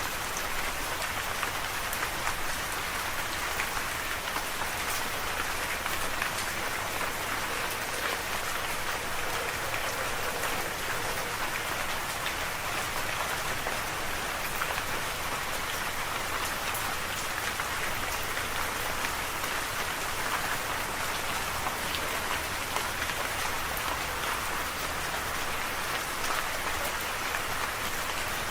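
Steady rain falling, a continuous hiss full of small drop patters with no pauses or thunder.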